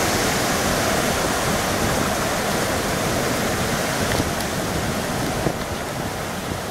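Sea surf washing and breaking against a rocky shore, a steady rushing of water that eases a little near the end.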